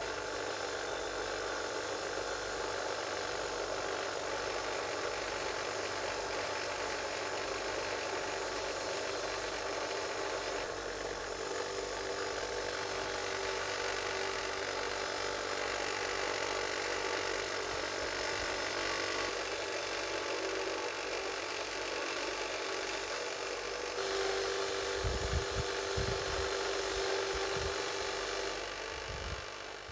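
Bench grinder's wire wheel spinning with a rusty M1891 Mosin-Nagant socket bayonet blade held against it: a steady scratchy hiss of the steel bristles scouring rust off the pitted blade over the motor's hum. It fades near the end.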